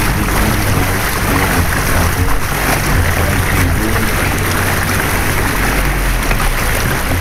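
Canal tour boat's engine running steadily with a low hum, under an even rush of noise from water and air moving past the open boat.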